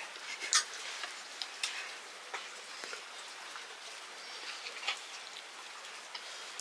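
A steel spoon clinking against a steel bowl in a few sharp, scattered clicks, over a steady soft hiss.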